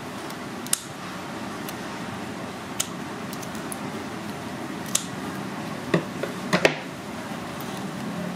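Knife clicking and knocking against a chopping board while cutting through mantis shrimp shell: five separate sharp strikes, the loudest two close together near the end, over steady background noise.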